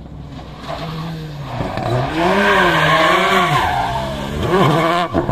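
Race car engine revving, its pitch rising and falling repeatedly with the throttle. It grows louder about two seconds in as the car comes closer.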